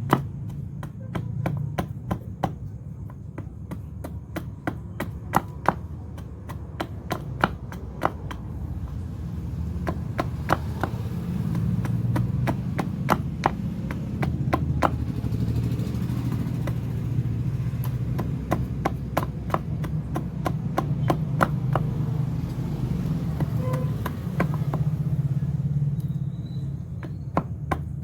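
Repeated sharp chopping strikes on a piece of wood being shaped into a gilli, coming irregularly and closest together in the first several seconds, over a steady low hum.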